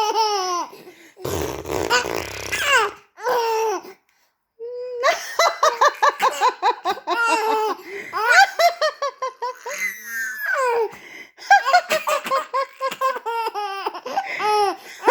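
A five-month-old baby laughing: high-pitched belly laughs in rapid, repeated pulses, with a short break about four seconds in before long runs of giggling.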